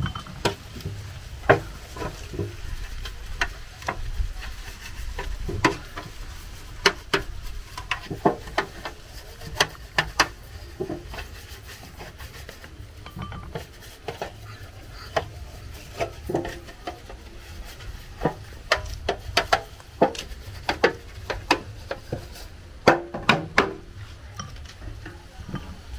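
Metal loaf tins, bowls and utensils being handled on a table: scattered knocks and clinks throughout, over a steady low rumble.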